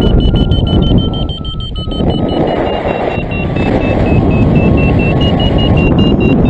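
Airflow rushing loudly over the microphone in flight, with a paragliding variometer beeping rapidly in a high tone that steps slightly up and down in pitch: its climb signal in lift. The rush eases briefly about a second and a half in.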